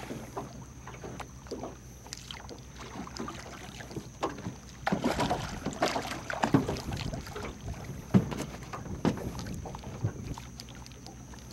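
Water slapping and splashing beside a small boat, with wind on the microphone. From about five seconds in comes a run of irregular splashes and knocks as redfish swirl at the surface next to the hull.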